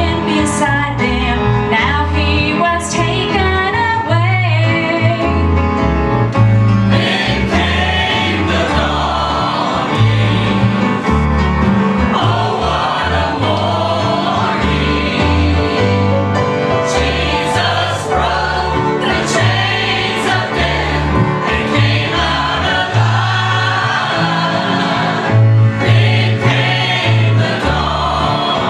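Gospel song sung by a mixed group of men's and women's voices with instrumental accompaniment and a steady, rhythmic bass line.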